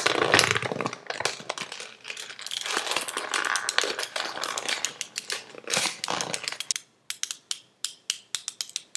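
Irregular crackling and crinkling noise that thins out near the end into separate sharp clicks with short silences between them.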